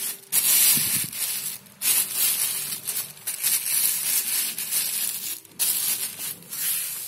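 Thin plastic bag crinkling and rustling on and off as it is squeezed and wrapped by hand over a motorcycle carburetor's intake.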